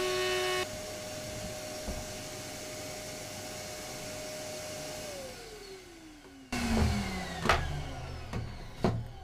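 Raitool 800 W trim router: its cutting noise stops under a second in, leaving the motor running with a steady whine. About five seconds in it is switched off and winds down in a falling whine. From about six and a half seconds in, sharp clicks and knocks of quick-release clamps being undone and the plywood board being handled.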